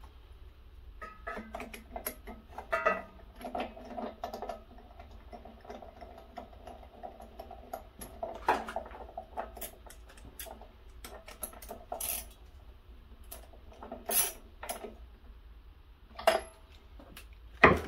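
Hand tools clinking and scraping on metal as a new spark plug is fitted with a spark plug socket on an extension: scattered light clicks and a few sharper knocks, with the engine not running.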